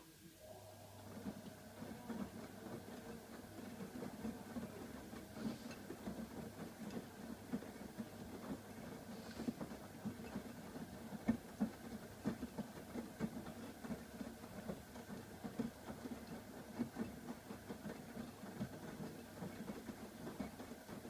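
AEG Öko-Lavamat 85739 washing machine's drum turning, its motor humming under the irregular slosh and thud of wet laundry tumbling; it starts just after the beginning and stops abruptly near the end, one tumbling stroke of the wash cycle.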